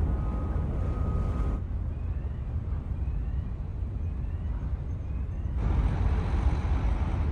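Port ambience on a ferry's deck: a steady low rumble of ship and quayside machinery with wind noise. It changes abruptly twice, and the quieter middle part carries faint short rising chirps about once a second.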